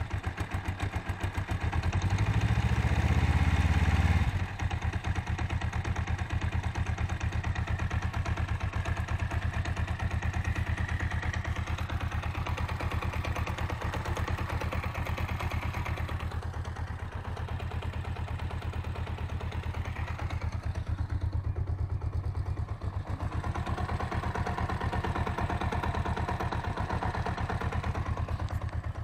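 Kawasaki GPZ500's parallel-twin engine running: louder for the first four seconds, then dropping to a steady idle. Its gearbox has a knock whose cause the owner is trying to find.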